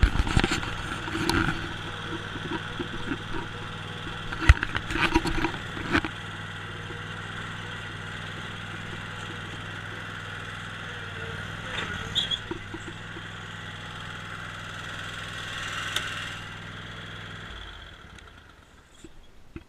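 Kohler Courage Pro 27 hp V-twin engine on a Bad Boy ZT Pro zero-turn mower running steadily, then shut off near the end. A few sharp knocks and clatters sound over it.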